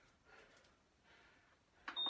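Faint heavy breathing of someone catching his breath after exertion, a few breaths, then near the end a sharp click as a high electronic beep begins.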